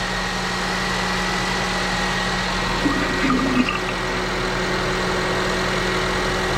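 Car engine idling steadily, its power steering system freshly filled with steering fluid. A brief faint extra sound comes about three seconds in.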